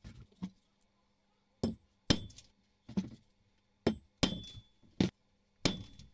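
A hammer striking a steel letter punch to stamp a maker's name into a steel plane iron resting on a steel block: about nine sharp metallic clinks with a brief ring, coming unevenly and often in pairs.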